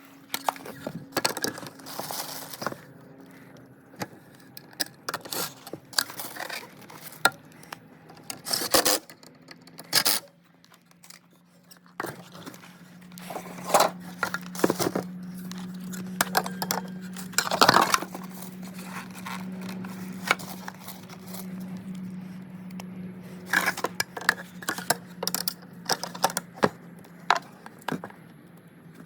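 Irregular clicks, clinks and scrapes of small metal parts and tools being handled. A steady low hum comes in a little before halfway.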